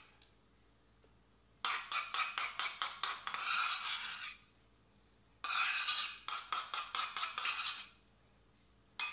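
Metal spoon scraping and clinking against a bowl in quick strokes as soft fresh cheese is scooped out, in two runs of a couple of seconds each with a short pause between.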